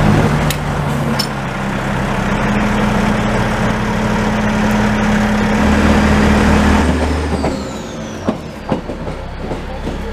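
Engine of a Romanian-built narrow-gauge diesel locomotive fitted with a Caterpillar diesel, running steadily as the locomotive moves slowly close by. About seven seconds in the engine note fades away as it moves off, leaving a few sharp clicks.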